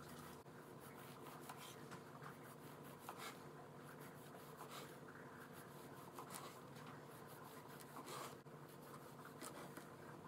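Serrated knife sawing through rolled cinnamon-roll dough and down onto a plastic cutting board: faint, repeated rasping strokes as each slice is cut.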